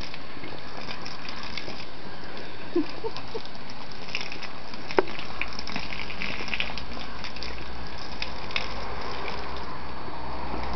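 Garden hose spray wand spraying water onto a lawn: a steady hiss and patter of spray, with a sharp click about five seconds in.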